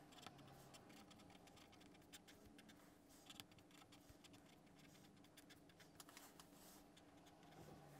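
Near silence with faint, scattered scratches and ticks of a pen writing on notebook paper, over a faint steady hum of room tone.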